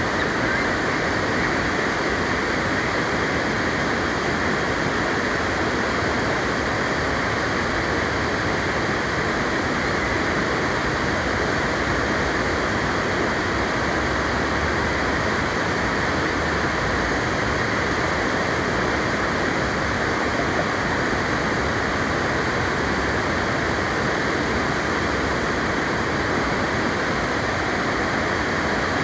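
River water rushing over a low rock ledge into whitewater rapids, a steady noise that holds even throughout.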